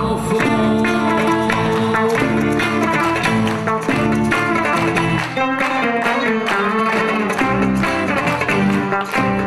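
A Turkish band playing an instrumental interlude with no singing. Quick plucked-string notes from oud and bağlama lead, over bass guitar.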